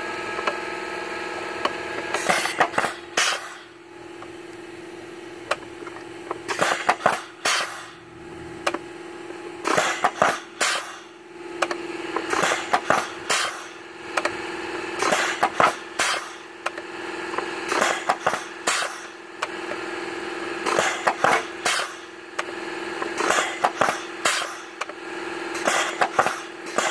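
CAT 7155 16-speed transmission's air-shift valve body cycling through gears: sharp pneumatic clicks and short bursts of air, usually two at a time, about every two and a half seconds, over a steady mechanical hum from the running truck and air compressor. The valve body is working and steps through all 16 gears.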